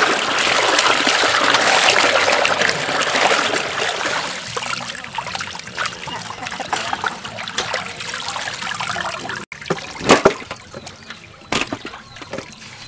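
A stream of water pouring into a metal basin while hands slosh and rub raw shrimp in it, the splashing fading over several seconds. After a break, two sharp knocks a second and a half apart.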